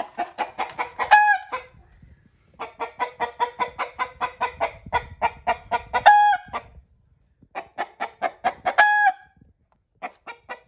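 Rooster cackling in alarm: runs of rapid clucks, about four or five a second, each ending in one long drawn-out squawk, three times over with another run starting near the end. The bird is upset at being shut in a crate.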